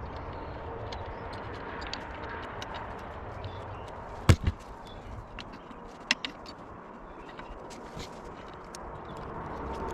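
Clicks and knocks of parts and hand tools being handled during assembly of an electric scooter, with a loud sharp knock and a quick second one about four seconds in and another sharp knock about two seconds later.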